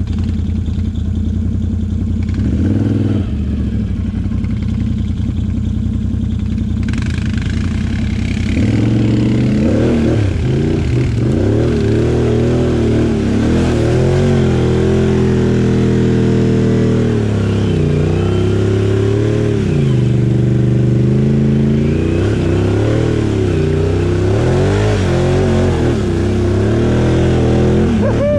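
Can-Am Outlander XMR 850 ATV's V-twin engine running at a steady low speed, then, from about eight seconds in, revving up and down again and again as it is ridden.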